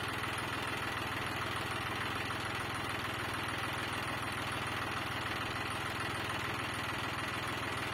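Farm tractor's diesel engine running steadily at low revs while it powers a tractor-mounted crane holding a concrete power pole.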